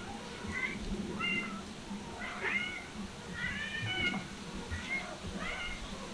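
Cats meowing: a run of short, high-pitched meows, about seven in six seconds.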